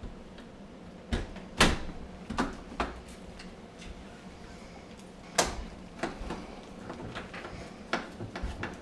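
Knocks and clicks of oven door parts being handled and fitted together. Two louder knocks stand out, about one and a half seconds in and about five and a half seconds in, with a run of smaller clicks near the end.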